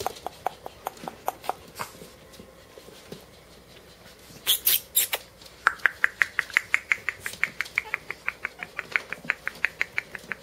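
Shih Tzu puppies squeaking in rapid, evenly repeated high peeps, several a second. The peeps pause for a couple of seconds. A brief burst of noise comes about four and a half seconds in. Then the peeps start again higher and quicker, about five a second.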